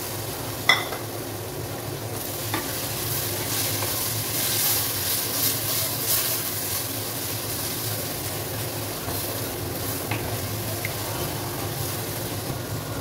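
Onion, tomato and spice masala sizzling as it fries in a clay pot, stirred and scraped with a wooden spatula. A sharp knock against the pot about a second in, with a couple of lighter taps later.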